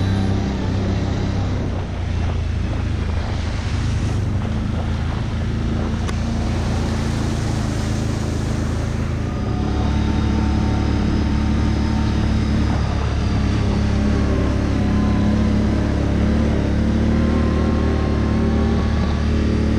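ATV engine running steadily while riding along a dirt and gravel trail, with the engine tone shifting about halfway through.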